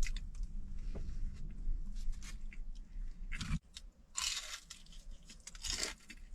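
A man biting and chewing food close to the microphone, in short bursts, over a low steady hum that cuts off suddenly about three and a half seconds in.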